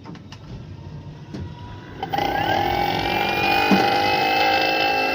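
The A5 motor starts up about two seconds in, its whine rising briefly, then running steady with a high whine: the motor noise problem being shown. Before it starts there are a few faint clicks.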